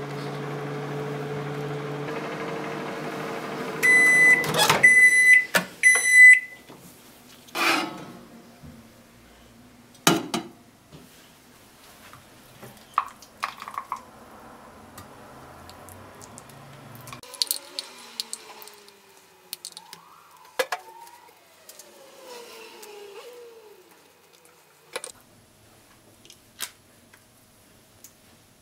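Microwave oven running with a steady hum, which stops about four seconds in with a few short high beeps signalling the end of the cycle. After that come scattered clunks, clicks and scrapes of kitchen handling.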